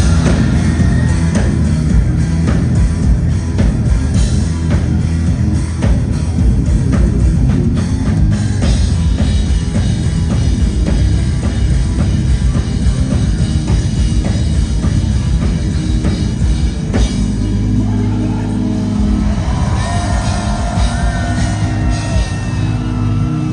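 Heavy metal band playing live at full volume: a driving drum kit and distorted electric guitars, with a held guitar melody line coming in about eighteen seconds in.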